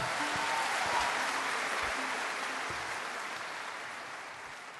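Audience applauding at the end of a concert piece, the clapping fading out toward the end.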